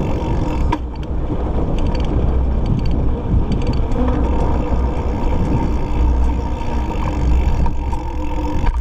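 Wind buffeting the microphone of a handlebar-mounted camera on a moving mountain bike, a heavy steady rumble, with tyre noise and occasional clicks and rattles from the bike.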